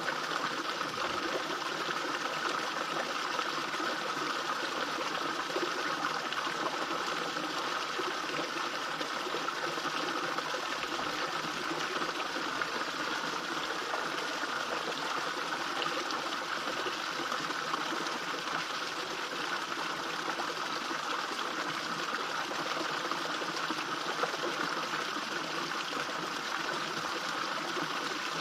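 Small waterfall splashing steadily into a fish pond.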